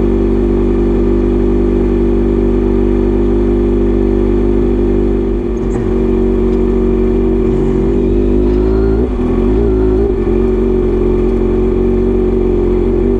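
Kawasaki Z900RS inline-four engine breathing through a Misty Kintaro short-pipe muffler with a 70 mm silencer, running steadily at an even pitch, with brief wavers and dips about five and a half and nine seconds in.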